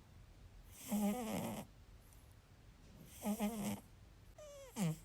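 Cat snoring in its sleep: three pitched, squeaky snores about every one to two seconds, the last one sliding down in pitch.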